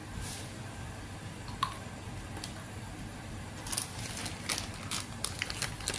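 Faint scattered clicks and taps of a plastic spoon against a plastic mixing bowl as powdered seasoning is tipped in, with a single click about a second and a half in and a run of light clicks in the second half.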